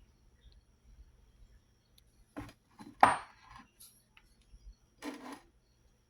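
Small metal lathe parts being handled and set down: a few short knocks and clinks, the loudest about three seconds in, with another near the end.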